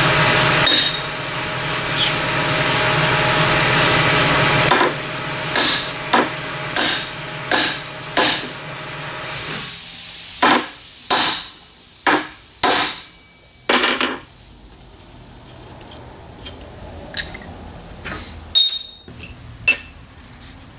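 A steady mechanical running sound for the first few seconds, then about ten sharp hammer blows on metal, then a few lighter taps and clinks of metal parts.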